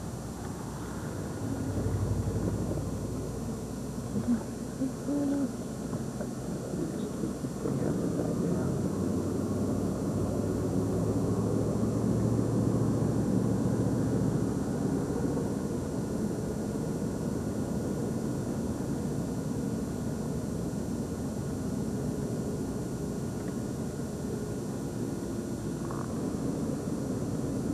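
Steady car engine and road rumble heard from inside a moving car's cabin, with a low hum that grows stronger for a few seconds partway through.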